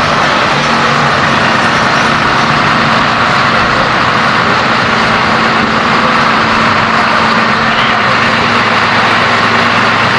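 A large engine idling steadily, a constant low hum under a loud, even hiss.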